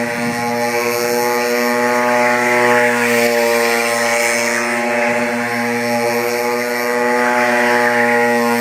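Go-kart engine running at steady high revs as the kart circles, its pitch holding almost constant with only slight rises and falls.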